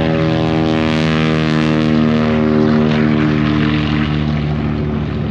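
Grumman TBF Avenger's big radial engine and propeller droning as the aircraft flies past, loudest about halfway through and then easing off, its pitch sliding slightly lower.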